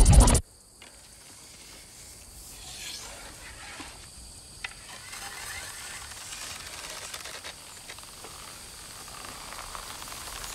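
A loud low throbbing cuts off suddenly about half a second in, leaving quiet outdoor ambience: a soft steady hiss with faint rustles and ticks that slowly grows a little louder.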